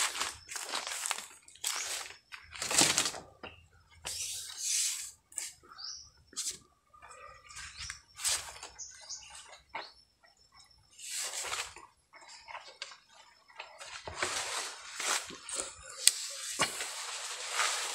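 Irregular rustling and scraping of leaves and branches as a long bamboo harvesting pole is pushed and worked up in the tree canopy, in short uneven bursts with a sharp click near the end.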